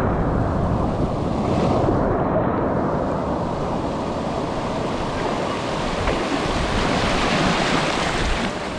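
Ocean surf washing and breaking, with wind rumbling on the microphone. The hiss of the surf swells from about three seconds in.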